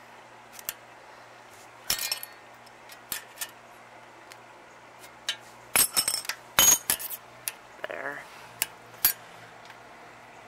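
Steel adjustable wrenches clinking and tapping against a thin aluminum flat bar as it is twisted into shape: scattered metallic clinks with a short ring, a small cluster about two seconds in and a busier run around six to seven seconds.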